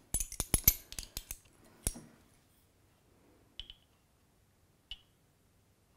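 Plastic measuring spoons clicking and clattering together in the hand: a quick run of sharp clicks over the first two seconds, then two faint light taps later on.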